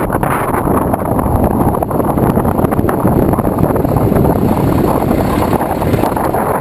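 Wind rushing over the microphone of a handlebar-mounted camera on a moving bicycle. Under it runs a steady rumble of tyres on asphalt, with small knocks and rattles as the bike goes over the road surface.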